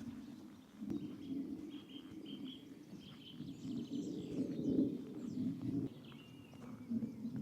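Small songbirds singing over a steady low outdoor rumble. A run of repeated high notes comes in the first few seconds, and a short twittering phrase near the end.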